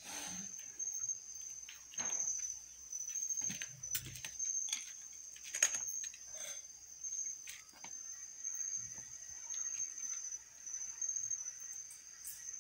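Crickets chirping, a steady high-pitched trill with no breaks, with scattered faint clicks and knocks over it.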